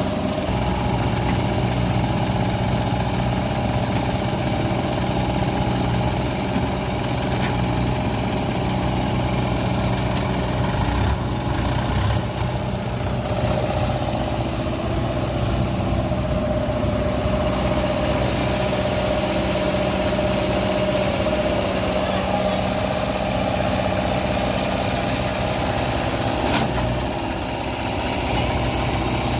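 Diesel engine of a JCB 3DX backhoe loader running steadily while it works, with a few short knocks about a third of the way in and again near the end.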